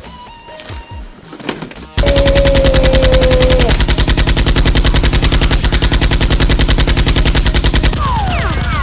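Automatic gunfire sound effect: a long, very rapid continuous burst that starts suddenly about two seconds in and stops about a second before the end. It is followed by a few quick falling whistling tones.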